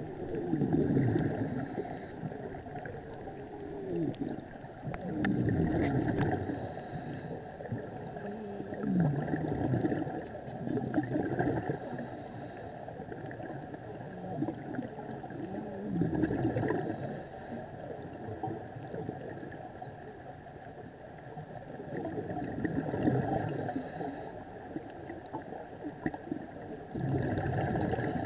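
Scuba diver breathing through a regulator underwater: exhaled bubbles gurgle out in bursts every few seconds, with a fainter hiss between them.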